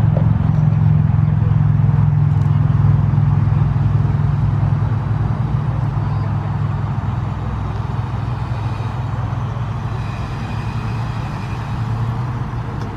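Car engine running with a steady deep rumble, easing off somewhat after about five seconds.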